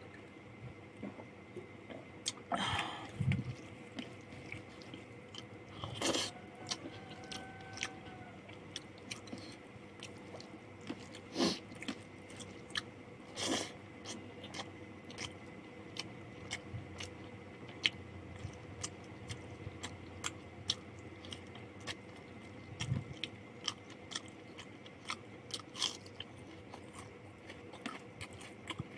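Close-miked eating: chewing and biting, with many short wet mouth clicks throughout and a few louder smacks and crunches.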